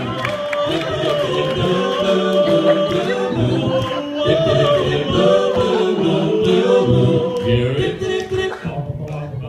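Male a cappella group singing a doo-wop number in close harmony, several voices holding and shifting chords through stage microphones. The harmony thins out shortly before the end.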